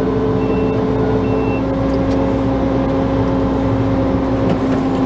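Combine harvester's engine running steadily at an even speed, heard from the cab. A short high beep sounds twice in the first second and a half.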